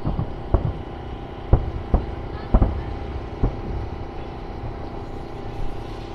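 Fireworks going off: a string of sharp bangs and booms, several close together in the first half and sparser after, over a steady low rumble.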